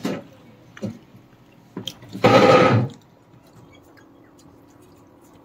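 A short rush of water lasting under a second, about two seconds in, after a couple of light clicks; then only a faint steady background hum.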